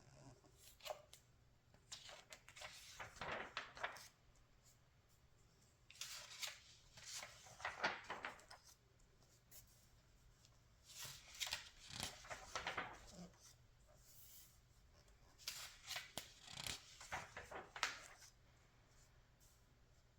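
Glossy magazine pages being turned by hand, the paper rustling and crinkling in four separate page turns, each lasting two to three seconds.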